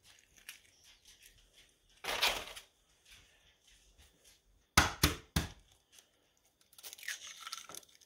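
An eggshell being cracked on the rim of a small bowl and broken open: a few sharp knocks about five seconds in, with crackling and scraping handling noise before and after.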